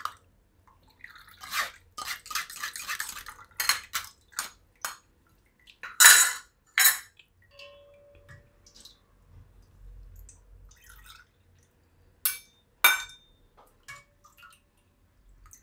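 Steel ladle scraping and clinking inside a stainless-steel mesh strainer as bel fruit sharbat is pressed through it. A quick run of small scrapes and taps comes first, then sharp metal clinks about six and seven seconds in and twice more near the end, with a short ringing tone after some of them.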